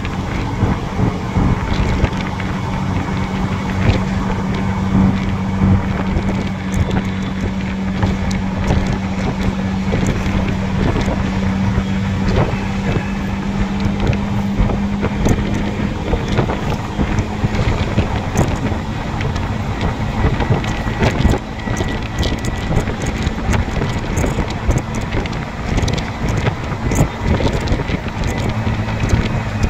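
Steady road and wind noise from a moving road vehicle, with wind buffeting the microphone. A steady engine hum fades out about halfway through.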